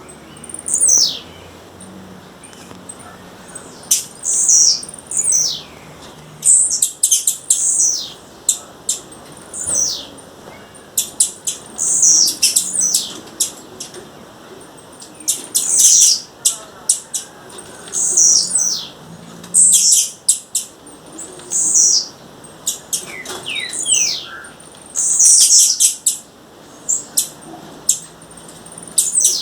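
Blue-black grassquit (tiziu) calling over and over: high, thin notes that slide down in pitch, mixed with sharp clicking ticks, coming every second or two.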